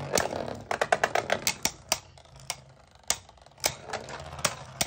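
Two Beyblade spinning tops colliding in a plastic stadium: a quick run of sharp clacks in the first two seconds, then single clacks about every half second.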